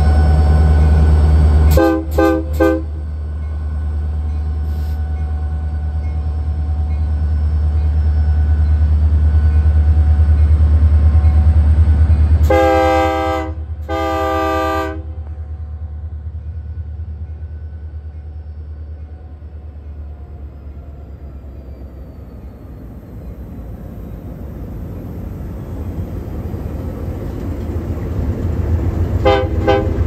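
Union Pacific diesel locomotives passing close by with a heavy, steady engine rumble that fades after the middle and builds again near the end as more units pass. Over it, a locomotive air horn gives a salute: a few quick toots about two seconds in, two longer blasts around the middle, and another rapid string of short toots near the end.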